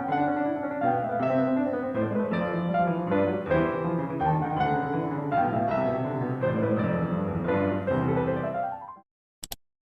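Background piano music that fades out about nine seconds in, followed by a brief double click.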